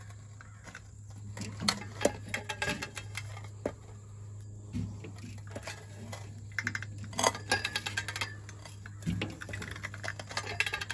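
Metallic clinks and clicks of a socket wrench and a steel-pole cheater bar being fitted and levered against a rusted, seized exhaust manifold bolt, with scattered sharp clicks and short ringing metal clinks, over a steady low hum.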